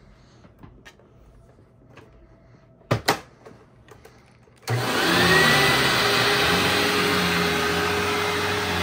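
Two sharp clicks, then a 2000 Hoover WindTunnel Ultra Self-Propelled (U6425-900) upright vacuum cleaner's 12-amp motor switching on about two-thirds of the way in. Its whine rises in pitch for about a second as it spins up, then it runs steadily.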